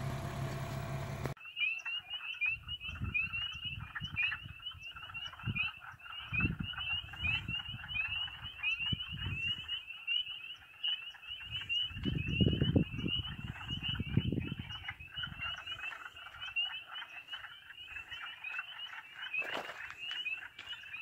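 A dense chorus of frogs: many short, high, rising calls overlapping without a break. Irregular low rumbles close to the microphone come and go, loudest about halfway through. For about the first second a vehicle engine is heard idling, then it cuts off abruptly.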